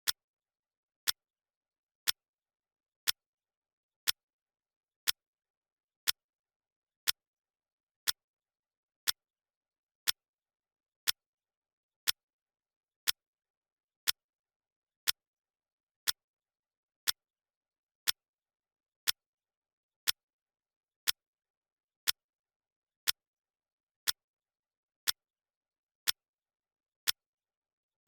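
Clock ticking, one sharp tick each second, steady and even, with silence between the ticks.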